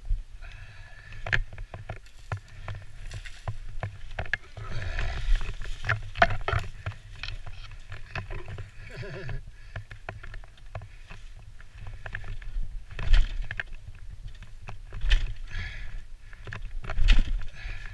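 Dry leaves and twigs crunching and crackling irregularly as the rider and dirt bike move through deep leaf litter, with scattered knocks and a low rumble of wind on the mic.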